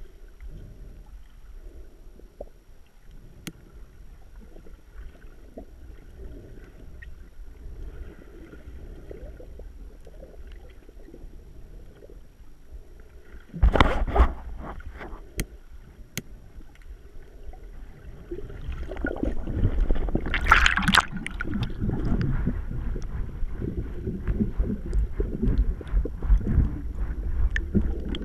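Water moving against a GoPro's waterproof housing while it is held underwater: a low, muffled rumbling and sloshing. A sudden loud rush of water comes about fourteen seconds in, and the water noise grows louder and splashier through the last third.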